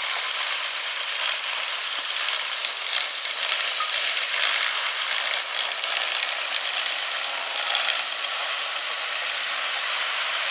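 Rotating brush of a battery-powered 7¼-inch gauge rail-cleaning trolley scrubbing along the rail as the trolley travels, a steady, even hissing scrape.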